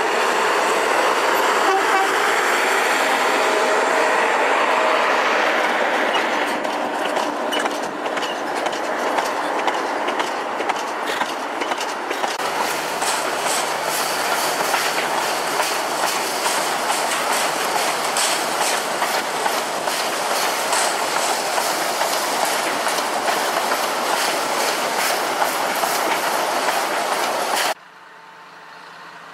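Sugar cane train rolling by on narrow-gauge tramway track, its wagons' wheels clicking rapidly over the rail joints. The sound is loudest in the first few seconds, then the clicking carries on steadily and cuts off suddenly near the end.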